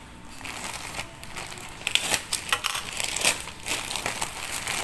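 Plastic courier pouch crinkling and crackling as it is handled and opened by hand, with many small crackles that get louder and busier about two seconds in.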